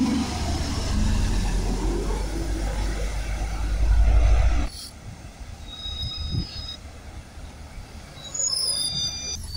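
City bus pulling up and stopping: a low rumble that cuts off suddenly with a short hiss about four and a half seconds in. Then high electronic beeps of the door warning signal as the rear folding doors swing open.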